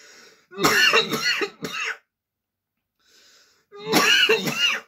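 A man coughing and clearing his throat in two fits, the second starting near the end.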